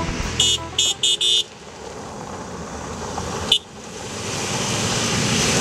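Four short high-pitched warning blasts in the first second and a half, and one more about three and a half seconds in. After them a rally car on a gravel stage gets louder as it approaches, its engine mixed with the rush of tyres on gravel.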